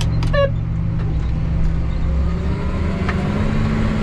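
John Deere tractor engine running steadily, heard from inside the cab, its pitch rising a little about three seconds in.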